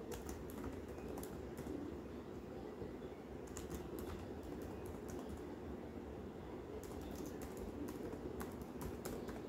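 Computer keyboard typing in short runs of keystrokes, fairly quiet, over a steady low background hum.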